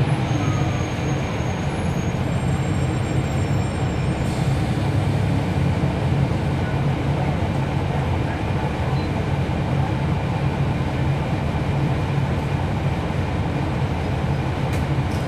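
Cummins ISL9 inline-six diesel of a 2011 NABI 416.15 40-foot transit bus running steadily, heard from inside the passenger cabin as an even low hum.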